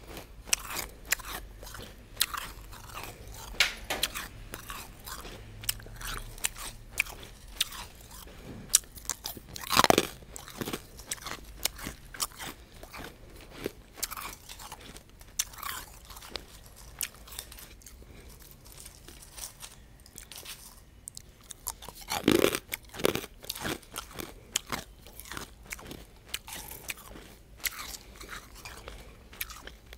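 Refrozen crushed ice being bitten and chewed right at an earbud microphone: irregular sharp crunches and crackles, with louder bites about a third of the way in and again about three quarters through.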